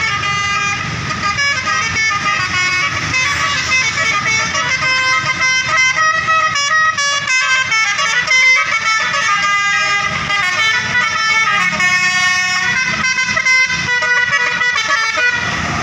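Bus 'telolet' horn, a multi-tone horn playing a long tune of quickly changing notes, with the bus engine rumbling underneath.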